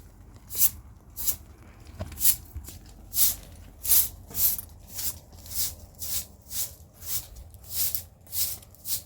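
Rhythmic scraping or brushing strokes, hissy and evenly paced at about one and a half a second, with a single knock about two seconds in.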